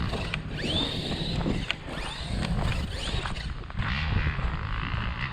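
Electric RC truck's brushless motor whining up in repeated quick bursts of throttle, the pitch climbing steeply then holding high before dropping off, several times over.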